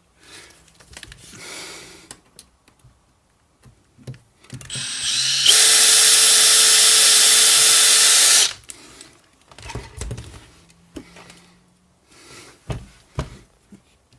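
Makita power drill spinning up to speed and running steadily for about three seconds while boring a small pilot hole in particle board, then stopping. A few light knocks and handling sounds come before and after it.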